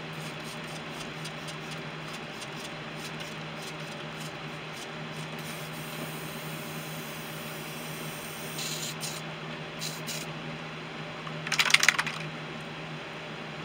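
Airbrush spraying in short hisses between paint colours, a brief one about nine seconds in and a louder, rattling burst near the end, over a steady low hum.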